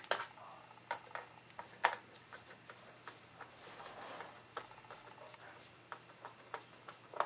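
Precision Phillips screwdriver unscrewing a small screw from a plastic airsoft drum magazine housing: scattered light clicks and ticks of the metal tip working in the screw head, the sharpest about a second and two seconds in and again near the end.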